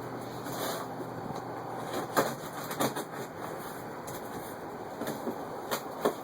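Cardboard shipping box being opened and handled: steady rustling and scraping, broken by a few sharp knocks and cracks about two seconds in and again near the end.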